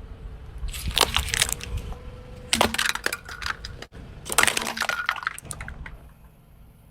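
Objects being crushed under a car's tyre: three bursts of crunching and cracking over a low rumble.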